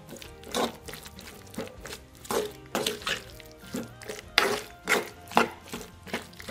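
Wooden spatula stirring a thick, sticky pickle mixture in a clay pot, with irregular scraping and squelching strokes about once or twice a second. Background music plays underneath.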